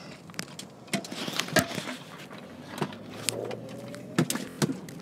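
Inside a moving car: a low steady hum of the running car, broken by several sharp taps and knocks and a short rustle, like handling noise from the phone being moved against the window.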